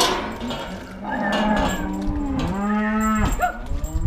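Cattle mooing: two calls, the second a long, clear moo about two and a half seconds in. A sharp clank comes right at the start.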